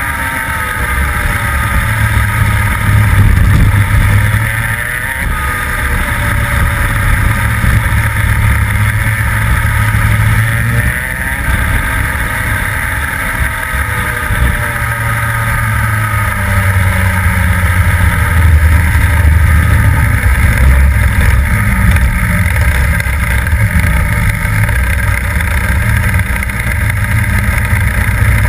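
Rotax two-stroke kart engine heard from on board at racing speed. Its pitch drops as it slows for corners and climbs again as it accelerates out, a few times.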